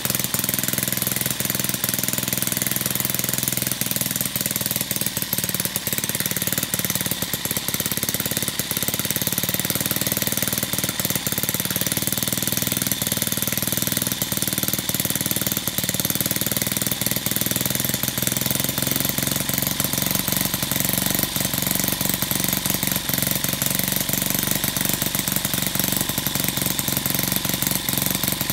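Model single-cylinder T-head marine engine, 1/2-inch bore by 3/4-inch stroke, running steadily with a fast, even stream of rapid clicks and clatter.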